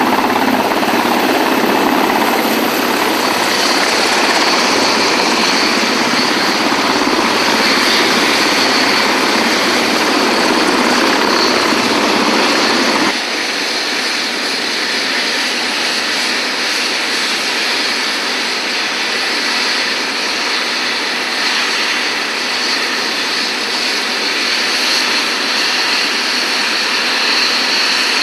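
Sikorsky S-70 Firehawk helicopter running on a rooftop helipad: steady rushing rotor and engine noise with a high turbine whine. About thirteen seconds in the deep low rumble drops away and it turns slightly quieter.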